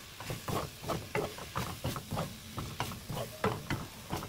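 A wooden spoon and spatula stirring and tossing garlic scapes in a thick red pepper-paste sauce in a nonstick wok: soft scrapes and knocks against the pan, about three a second.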